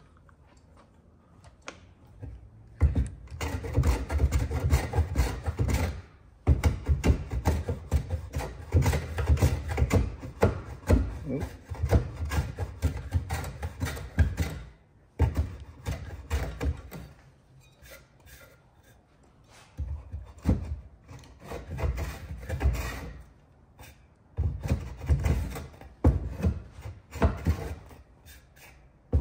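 Record 020C compass plane cutting shavings from the concave curve of a wooden workpiece: repeated rasping, scraping planing strokes. They start about three seconds in and come in runs of a few seconds with short pauses between.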